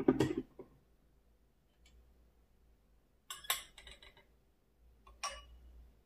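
An electric gooseneck kettle set down on its base with a thud, then a glass gaiwan's lid and bowl clinking against each other a few times about three seconds in, and one more ringing glass clink after five seconds.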